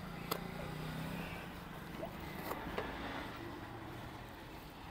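Steady low hum of road traffic, with a few sharp clicks and handling noises as a corded parcel is freed from a motorcycle seat and lifted off; the sharpest click comes about a third of a second in.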